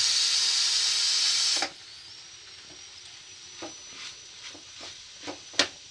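Steam hissing loudly out of an aluminium pressure cooker's vent as its weight is lifted to release the pressure; the hiss cuts off abruptly about a second and a half in. Then a spatula stirs onions sautéing in an aluminium pan, with a faint sizzle and scattered knocks against the pan, the sharpest near the end.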